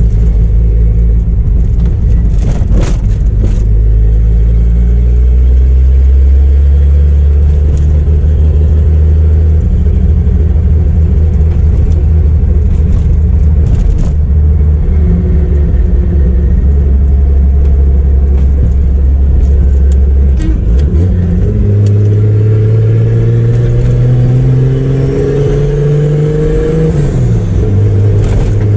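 Turbocharged Chevrolet Opala straight-six engine driving along, holding a steady low drone. About two-thirds of the way through the revs climb for several seconds, then drop sharply and settle again. There are a couple of brief knocks early and midway.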